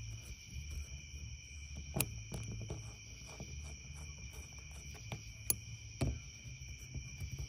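A screwdriver turning the cover screws of a VW TDI brake vacuum pump, with a few sharp metallic clicks, the loudest about two seconds in and two more near five and six seconds. Crickets chirp steadily in the background over a low hum.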